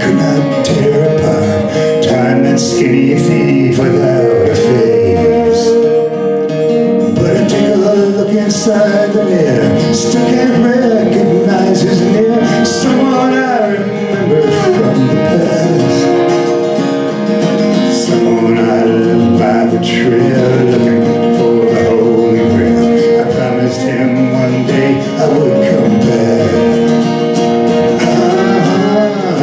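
Live acoustic music: a steel-string acoustic guitar strummed in a steady rhythm, with a violin playing sustained, sliding melody lines over it.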